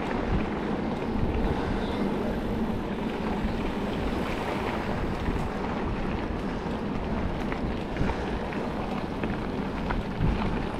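Steady rushing noise of riding an electric enduro mountain bike on a trail: wind on the microphone mixed with tyre noise, with a few faint ticks.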